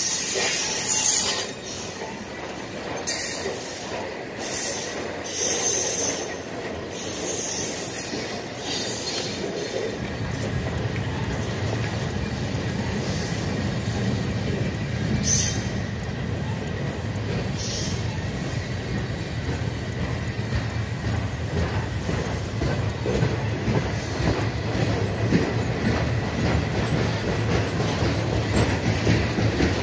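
Freight train of loaded military flatcars rolling past close by: steel wheels running and clattering over the rail. There are short high squeals of wheel on rail in the first half, and the low rumble grows heavier about ten seconds in.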